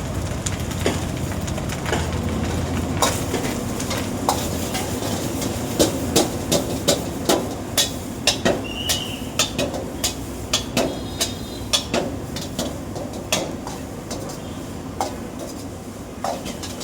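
A cooking utensil repeatedly knocking and scraping against a metal pot, as in stirring food, with sharp clinks about two a second through the middle over a steady low background rumble.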